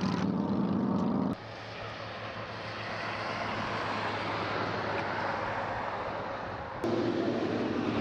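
Motorcycle engine running with wind rush while riding on the highway. About a second in it is cut abruptly to a steady rushing outdoor noise that slowly builds, and near the end it cuts again to another steady engine-like hum.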